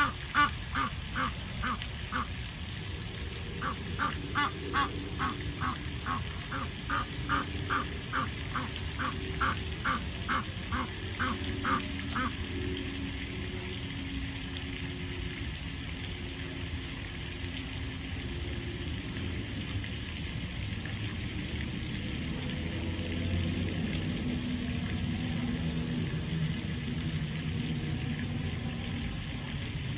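Waterfowl quacking in a rapid, regular series of about two calls a second. The calls pause briefly a couple of seconds in and stop about 12 seconds in, after which a steady low rumble remains and swells somewhat toward the end.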